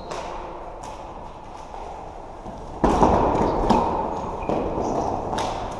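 Floorball play: sharp clacks of sticks hitting the plastic ball and the ball striking the rink boards, several times over a steady hall noise that gets suddenly louder about three seconds in.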